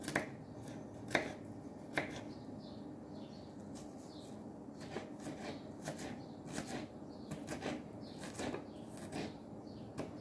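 Kitchen knife mincing a garlic clove on a wooden cutting board: slow, irregular taps of the blade on the board, three sharper ones in the first two seconds, then a run of lighter ones.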